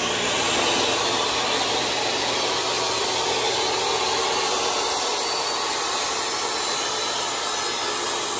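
DeWalt jobsite table saw running steadily at full speed.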